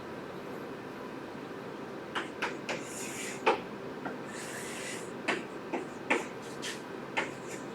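Writing on paper: a string of short scratching strokes and light taps, with a couple of longer scratches, over a steady room hum.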